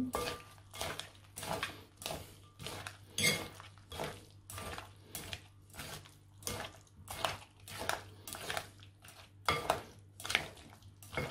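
Mixing utensils clinking and scraping against a glass bowl as a chunky yogurt salad is stirred and mashed, a clack about twice a second.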